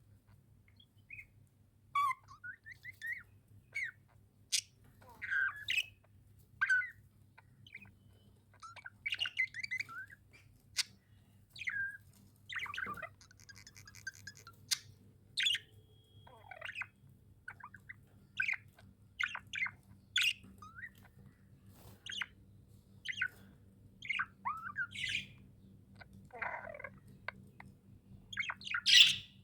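Pet budgerigars chirping in many short, irregular calls, with the loudest squawk near the end.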